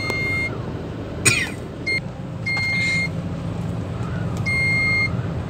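Warning beeper in a crane cab sounding a high beep about half a second long every two seconds, over a low steady rumble. A short sharp knock comes about a second in.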